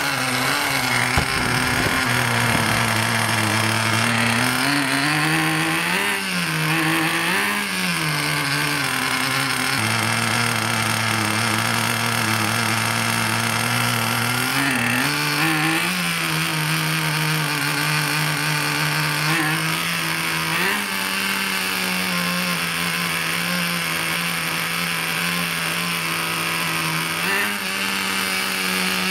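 Small two-stroke engine of a large-scale RC monster truck running at idle, with two short revs about six and seven and a half seconds in. The idle speed then shifts up and down in steps while the carburettor's gas screw is turned with a screwdriver.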